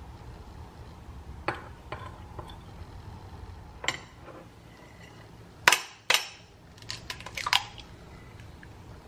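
Metal spoon clinking against a ceramic mixing bowl in scattered sharp taps, with a louder pair of knocks a little past halfway and a quick run of taps near the end as an egg is cracked over the bowl.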